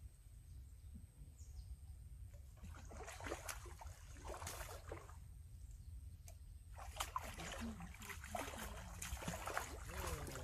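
A hooked fish splashing and thrashing at the water's surface as it is played on a long fishing pole. The splashes start a couple of seconds in and come faster and louder in the second half.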